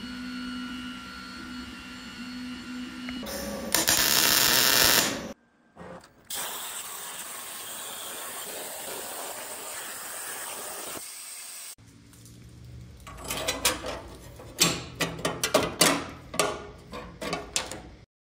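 Metal-fabrication sounds across several cuts. A steady hum with a few high tones and a brief loud hiss come first. Then a CNC plasma cutter hisses steadily as it cuts steel plate, followed by an irregular run of sharp crackles and pops.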